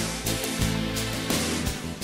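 Song playing through an instrumental stretch between sung lines: steady sustained notes with a few sharp beats.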